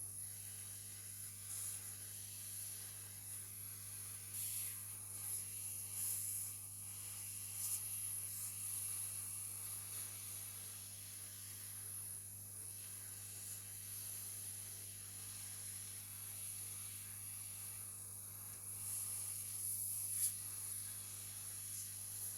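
Steady high hiss and a low hum, with faint scattered clicks and taps.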